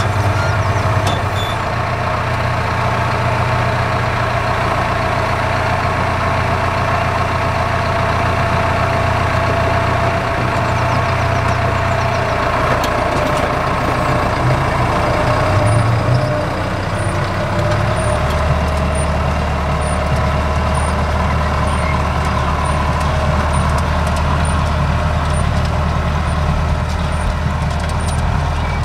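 Farm tractor diesel engine running steadily, its low note shifting about 18 seconds in. From about 16 seconds a faint high-pitched pip repeats roughly every three-quarters of a second.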